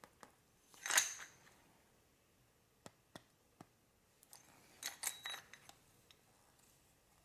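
Metal hand tools clicking and clinking as a ratcheting wrench works a CV-boot tool clamped on a Cummins ISX VGT turbo air actuator. A louder metallic rattle comes about a second in, a few single ticks follow, and a cluster of clinks comes about five seconds in.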